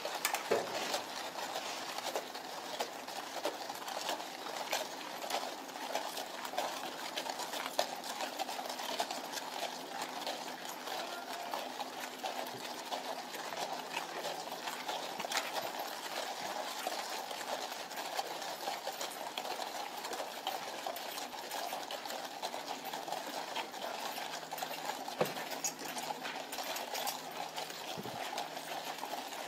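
Steady outdoor crowd ambience with many small scattered clicks and jingles, among them the hooves and harness of horses standing and shifting about.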